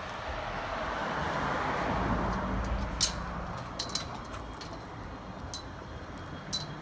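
A passing vehicle swells and fades, followed by several sharp metallic clicks and clinks.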